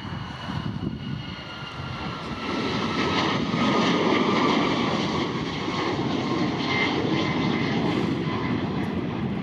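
Airplane engines running as an aircraft passes, a steady roar that grows louder about two and a half seconds in and stays loud, with a faint whine that sinks slightly in pitch.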